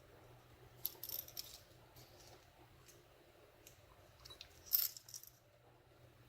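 Faint small metallic clicks and rattles of a padlock and its wire retaining clip being worked by hand: a short cluster about a second in and a sharper, louder clatter a little before five seconds.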